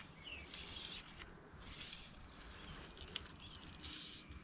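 Faint streamside outdoor ambience with a few short bird chirps, soft hissy rustles and a single light tick about three seconds in.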